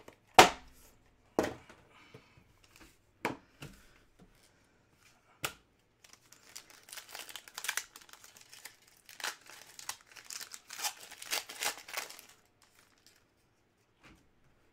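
Trading card packaging being opened by hand: a few sharp snaps, then several seconds of crinkling and tearing of the wrappers.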